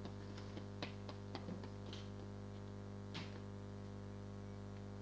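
Steady electrical hum from a Tyco TVC8000 toy camcorder's recording, with a scattering of faint short clicks and taps in the first two seconds and one more about three seconds in.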